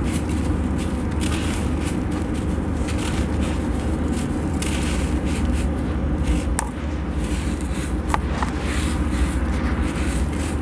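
Dry sand-cement lumps crumbled by hand, with gritty crunching and loose sand pouring in hissing streams into a plastic tub. A few sharp cracks come about six and a half and eight seconds in, over a steady low rumble.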